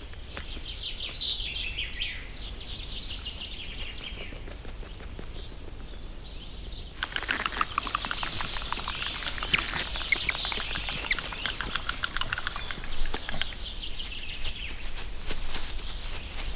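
Forest ambience with small birds chirping and twittering. About seven seconds in it switches abruptly to a louder, busier bed of rapid chirps and clicks.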